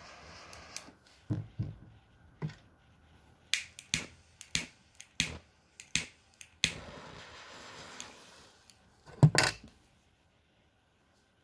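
Butane torch lighter's jet flame hissing, cut off with a click under a second in. Then a run of sharp clicks and knocks from handling the cigar and lighting gear. Near the end comes a short, loud scratching burst as a long match is struck and flares.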